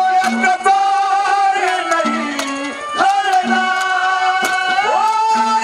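Haryanvi ragni folk music played live: long held melody notes that slide up into each new phrase, over quick hand-drum strokes, with singing.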